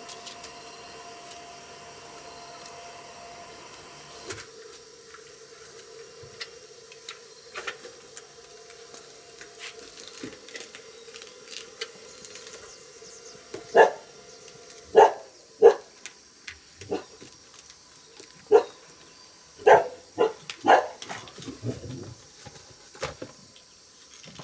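A dog barking repeatedly, about ten sharp barks roughly a second apart through the second half, over a faint steady hum.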